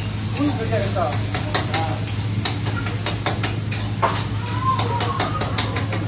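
Food frying at high heat in a pan on a gas range: a steady sizzle, with a metal spatula repeatedly clacking and scraping against the pan as it is stirred, over a steady low hum.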